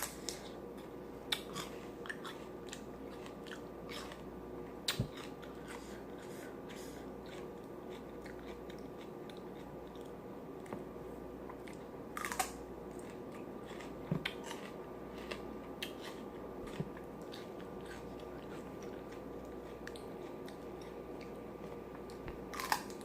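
Close-miked chewing and lip-smacking while eating chicken wings and tenders, with scattered sharp crunches and clicks of biting.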